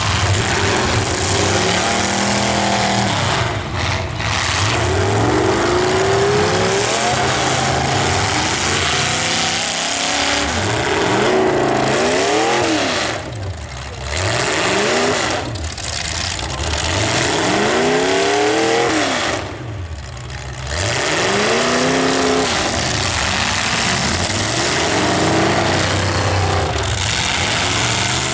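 Full-size demolition derby cars' engines revving hard again and again, their pitch climbing and falling every second or two, over a dense wash of noise. The loudness drops briefly three times.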